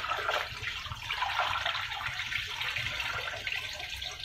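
Wash water pouring and splashing out of a tipped basin of sweet potato leaves into a stainless steel sink: the first rinse water being drained off before a second wash.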